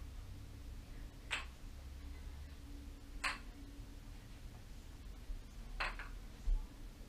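Wooden kendama clacking three times as the ball is caught on the cups and spike, about two seconds apart, over a faint low hum.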